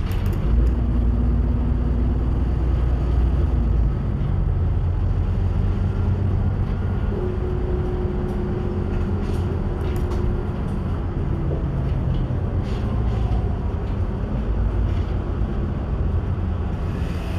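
Empty bus heard from the cabin: a steady low rumble of engine and road, heaviest in the first few seconds. A faint whine comes and goes, and there are a few short rattles.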